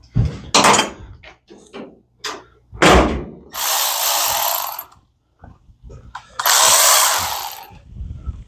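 A handheld power tool run in two bursts of about a second and a half each, after a few metallic knocks and clanks of tools and parts.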